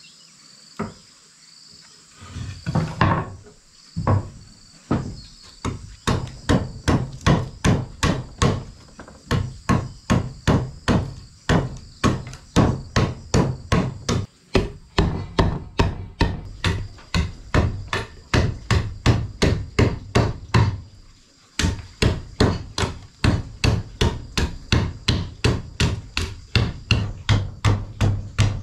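Machete striking a wooden board in quick, even strokes, about three a second. It begins with a few scattered knocks, settles into the steady rhythm after a few seconds, and pauses briefly about three-quarters of the way through. A steady high insect drone runs underneath.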